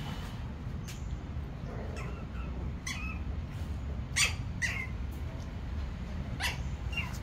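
A litter of puppies play-fighting, giving short high-pitched squeaky yips and squeals about half a dozen times, the loudest about four seconds in.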